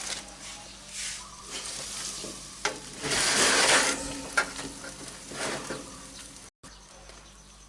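Pork ribs and their juices sizzling on the barbecue grill, with a few light clicks; a louder hiss swells about three seconds in and fades after a second.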